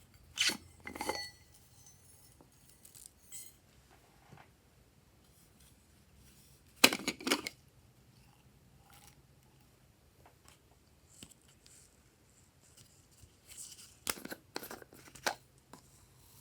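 Glossy slime being handled and mixed, making short clusters of sharp, sticky clicks and crackles. They come about half a second in, again about a second in, loudest near the middle, and in a run of several near the end, with quiet in between.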